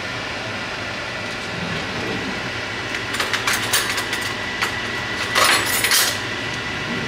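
Stovetop cooking with a steady rushing background, and several clinks and scrapes of a utensil against a stainless steel pot of pasta between about three and six seconds in.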